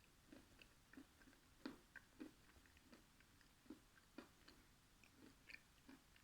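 Faint, soft chewing and wet mouth clicks of a person eating, coming irregularly about once or twice a second.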